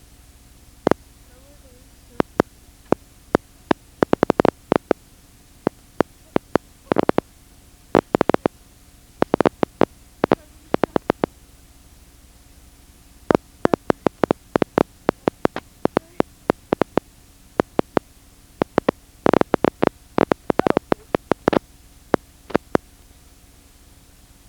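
Loud, sharp clicks and crackles come in irregular clusters, some in quick runs, over a steady low hum.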